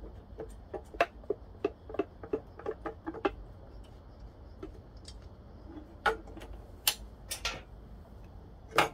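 Light metallic clicks and taps of small parts and tools being handled at a motorcycle engine's carburetor mount, with its mounting nuts and washers. The clicks come about three a second for the first three seconds, then a few louder, spaced clicks follow, the loudest near the end.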